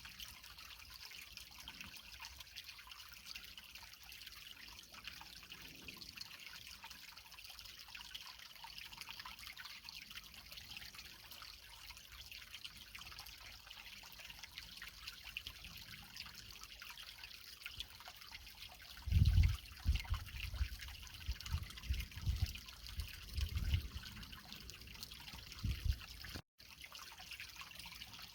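Creek water trickling and flowing steadily over rocks. About two-thirds of the way through comes a run of low rumbling thumps lasting several seconds. Near the end the sound cuts out for an instant.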